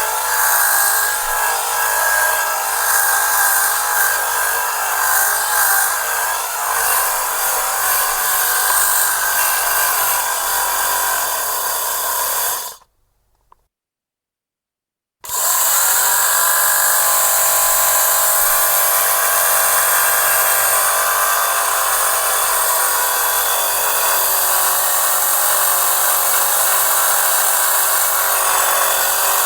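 Electric lint remover (fabric shaver) motor whirring with a high, steady buzz. It switches off a little under halfway through, stays silent for about two and a half seconds, then switches back on and runs steadily again.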